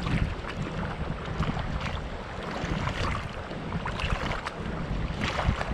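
Small waves lapping and washing over a rocky shoreline in short irregular splashes, with wind rumbling on the microphone.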